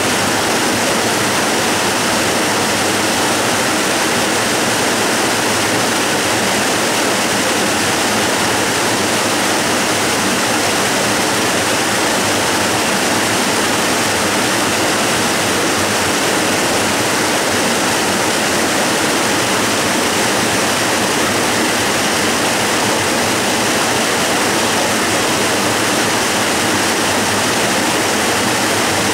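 Waterfall rushing steadily: a loud, even roar of falling water, mostly hiss with little deep rumble, never changing.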